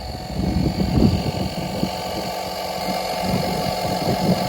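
Air compressor running steadily with a constant hum and low rattle, pumping air into a flat car tire.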